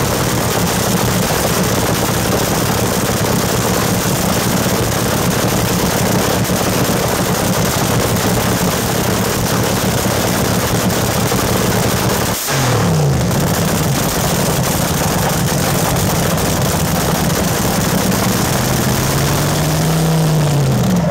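Dragster engine running loud through open headers at a steady idle. The engine speed dips and picks back up about twelve seconds in, and rises and falls once in a short rev near the end.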